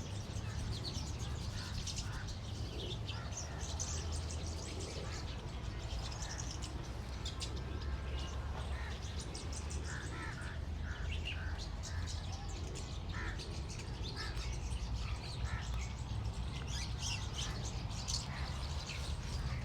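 Birds chirping, with a few crow caws, over a steady low rumble.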